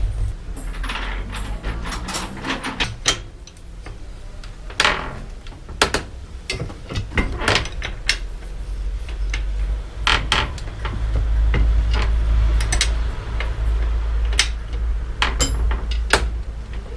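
Scattered metal clicks and knocks of hand tools on a bicycle's crank arm and bottom bracket being worked on; the bottom bracket of this new bike had come loose. A low rumble runs underneath, louder around the middle.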